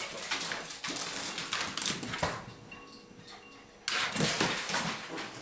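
Two dogs, an Old English Sheepdog puppy and a Havanese, play-fighting: low rumbling play-growls with scuffling and claws clicking and skidding on a hardwood floor.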